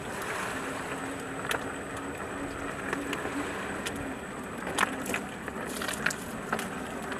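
Outdoor ambience on a calm sea shore: a steady wash of noise with a faint, low, steady engine hum and scattered sharp clicks.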